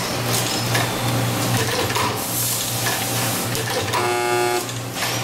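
Bench machine drilling holes in aluminium computer-case panels, running with a steady hum and irregular mechanical strokes amid factory noise. A brief pitched tone sounds about four seconds in.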